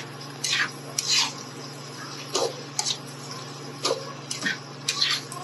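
Spatula scraping and stirring chicken and vegetables around a ridged nonstick pan, in irregular strokes about one every half second to a second, over a steady low hum.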